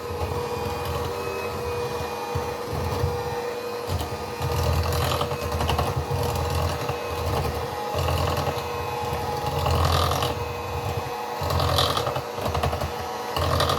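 Electric mixer running steadily with a constant whine, its beaters churning through cake batter with an uneven, pulsing rumble.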